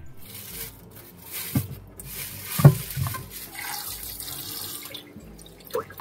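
Water running from a kitchen tap into a sink, with two clunks of something handled under it, the second the louder. The water stops about five seconds in.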